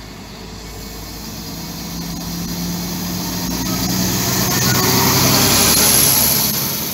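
Two coupled PESA SA135 diesel railcars passing close by: their engines running and their wheels on the rails, growing steadily louder to a peak about six seconds in as the cars go past, then easing off. A thin high whine sounds near the loudest point.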